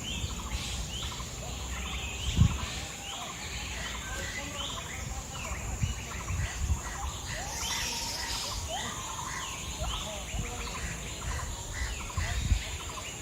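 Jungle chorus of many birds calling in short repeated notes over a steady high insect drone. A few low thumps break in, the loudest about two seconds in and another near the end.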